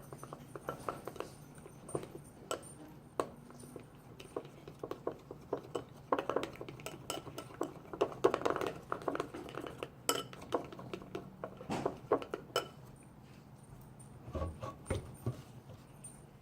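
Utensil clinking and scraping against a bowl while stirring clear glue slime, in quick irregular taps that are busiest around the middle.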